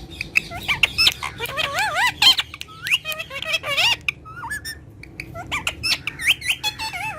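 Indian ringneck parrot squawking and chattering: a rapid run of short, sharp calls with wavering, sliding pitch, a short lull about two-thirds of the way through, then more calls.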